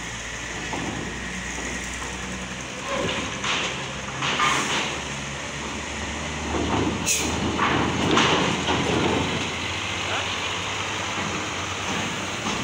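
Scania K410 IB coach's diesel engine running as the bus rolls off a ferry's steel ramp. Its wheels set off loud clanks and rattles from the steel plates, mostly in the middle.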